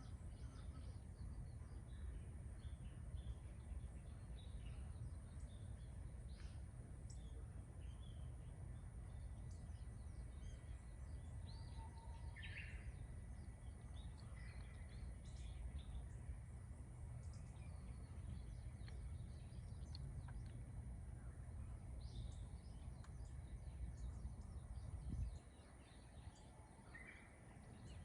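Wild birds in a morning forest calling and chirping, many short scattered calls, over a steady low rumble. A single thump about 25 seconds in, after which the rumble briefly drops.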